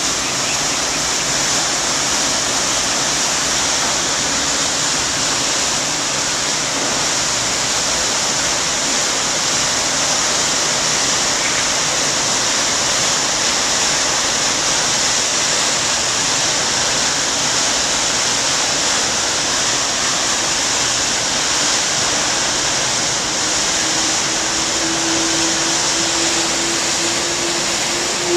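Propeller wash of the ferry M/V Walla Walla churning as it pulls out of the slip: a loud, steady rush of foaming water. A faint low hum slowly rises in pitch near the end.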